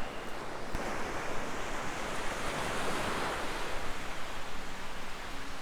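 Surf washing up the beach: the rush of a wave swells to a peak about three seconds in and then eases off. A single sharp click sounds just under a second in.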